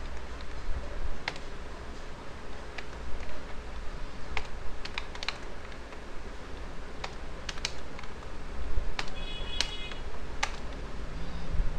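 Typing on a computer keyboard: scattered, irregular keystrokes, several in quick runs, over a steady low hum.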